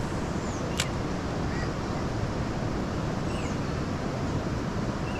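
Steady wind rumble on the microphone mixed with water rushing along a moving kayak's hull, with a short click about a second in and a few faint bird chirps.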